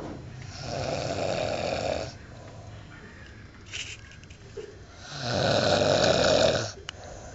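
A sleeping person snoring: two long snores, each about a second and a half, the second one louder.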